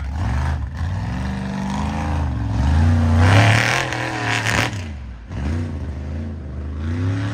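Mega truck engine revving hard, its pitch rising and falling several times. It is loudest between about three and four and a half seconds in, with a rush of noise on top at that peak.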